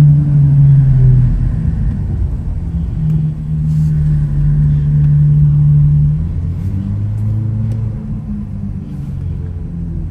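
Ferrari 812 Superfast's V12 running at low speed, a steady deep drone. It drops off about a second in, comes back, and settles to a lower pitch after about six seconds as the car eases to a stop.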